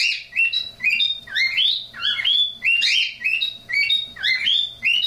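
Pet cockatiel chirping over and over, about two short rising calls a second without a break.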